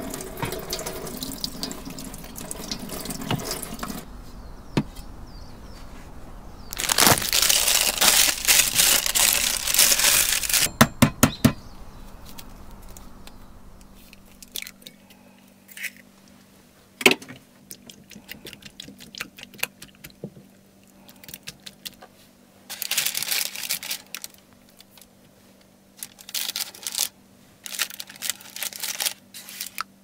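Water running from a tap in several bursts, the longest about seven seconds in, with a few sharp knocks and clinks between.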